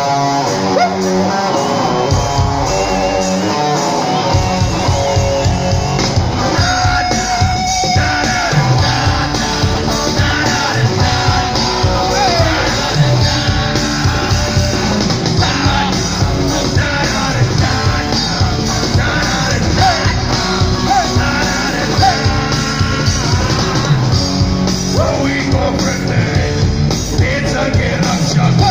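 Live rock band through the PA: electric guitar plays on its own briefly, then drums and bass come in about two seconds in with a steady driving beat, and vocals are shouted over the music.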